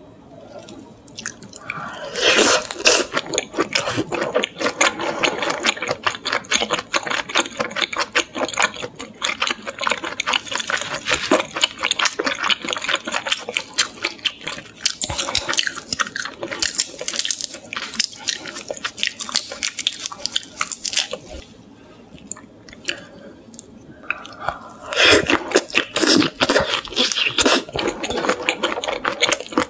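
Close-miked chewing of salt-grilled shrimp dipped in butter sauce: a dense run of small wet clicks and crunches, a quieter gap, then another bout of chewing near the end.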